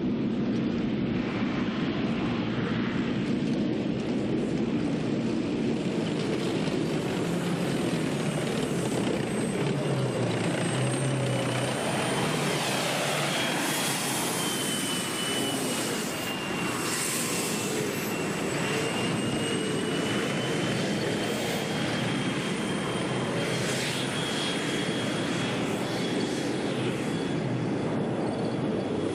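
Steady, loud engine noise with a thin high whine that wavers slightly in pitch above it.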